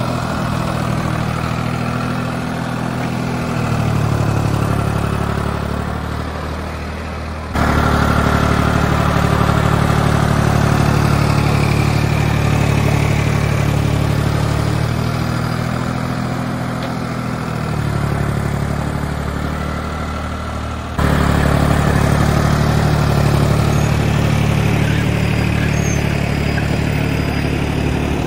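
Farmtrac 60 T20 tractor's diesel engine running steadily, its pitch shifting slightly now and then. The level jumps suddenly twice, about 7.5 and 21 seconds in.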